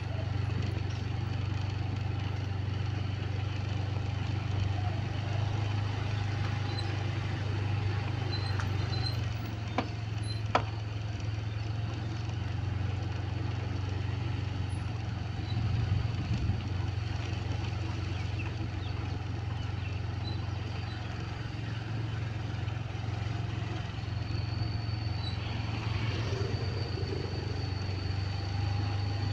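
Small motorcycle engine running steadily at low speed while riding along a village lane, an even low hum throughout. Two sharp clicks about ten seconds in.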